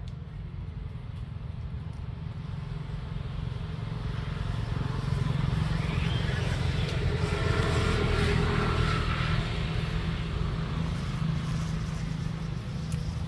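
A motor vehicle passing by: a low engine rumble that swells to a peak about eight seconds in, then fades.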